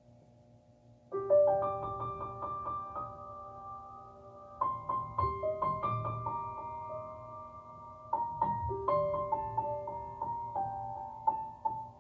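Piano playing a slow instrumental introduction: after a quiet first second, single notes are struck and left ringing, in gentle phrases that restart twice.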